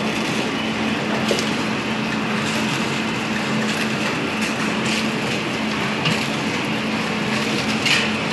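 Automatic ice candy packing machine running: a steady mechanical clatter over a constant hum, with scattered sharp clicks.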